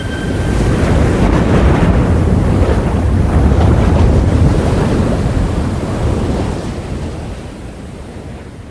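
Ocean waves washing in: a dense surging rush that builds about a second in, holds, and then slowly fades away.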